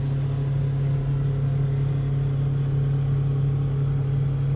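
A fishing boat's motor running steadily with a low, even drone.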